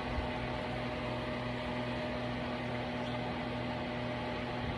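Steady low hum with an even hiss and no distinct events: background room tone from a machine or appliance.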